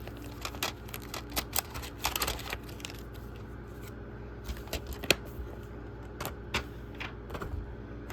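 Paper and cardboard inserts being handled and pulled from a disc box set: scattered clicks and short rustles, the busiest stretch about two seconds in and a sharp click about five seconds in, over a steady low hum.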